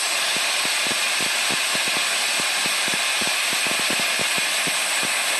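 Star SR20 sliding-head CNC lathe running while machining a brass banjo fitting: a steady high hiss with many irregular soft low taps.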